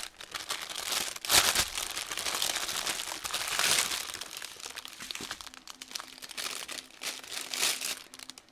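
Crinkling and crackling of the plastic wrapping around a bundle of bagged diamond-painting drills as it is handled and opened. The crackle is loudest about a second in and again near the middle, then quieter.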